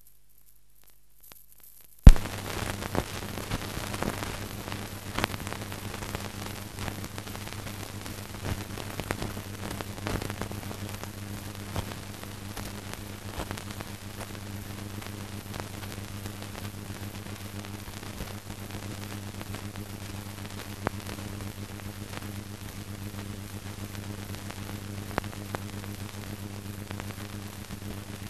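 Surface noise of an old film soundtrack: a steady hiss with a low hum and scattered crackles, starting with a loud click about two seconds in.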